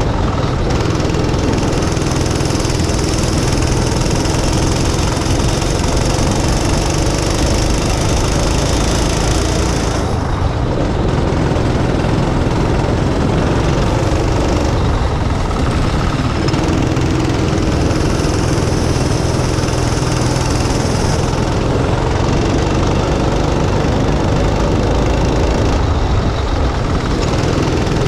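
Go-kart engine running hard as it laps, heard from the driver's helmet. The engine note holds steady on the straights and eases off twice for corners, about ten seconds in and again around twenty-one seconds in.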